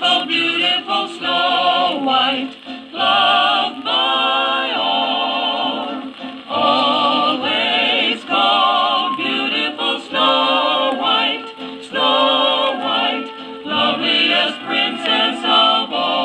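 Vinyl children's record playing through loudspeakers: a group of voices singing a song in phrases, with wavering vibrato. The sound is dull, with little treble.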